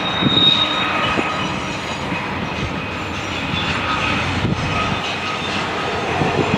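Double-stack freight train rolling past: a steady rumble of steel wheels on rail, with faint clicks and brief high wheel squeals, the clearest about half a second in.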